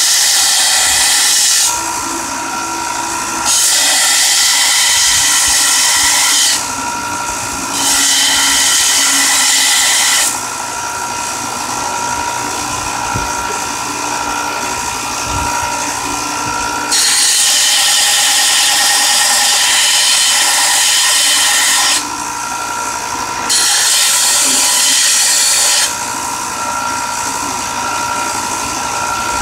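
Belt sander grinding a steel knife blade to put an edge on it. The motor and belt run with a steady whine throughout. The blade is pressed to the belt in five passes of a few seconds each, each bringing a loud, high, hissing grind; between passes the belt runs free.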